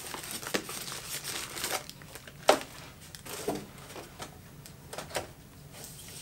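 Plastic packaging bags crinkling and rustling as bagged sewing-machine accessories are handled, with a few knocks as items are set down on the table, the sharpest about two and a half seconds in.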